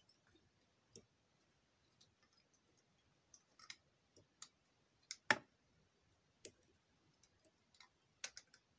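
Irregular light clicks and ticks from close-up fly-tying handling, as monofilament line is wound over a film-covered fly body held in a vise. The sharpest click comes a little past halfway.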